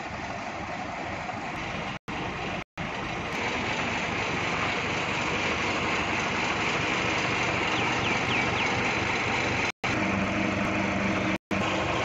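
Mahindra Yuvo Tech+ 585 DI tractor's diesel engine running steadily at idle, the sound dropping out to silence for a moment four times.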